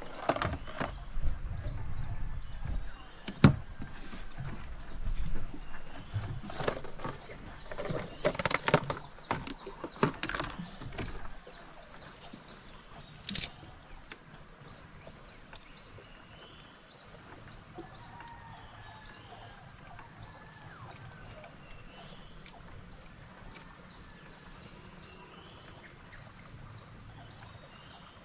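Knocks, bumps and rumbles of someone moving about and handling gear in a small boat for roughly the first ten seconds. Then riverside forest ambience: an insect chirping about twice a second over a steady high insect drone, with faint bird calls.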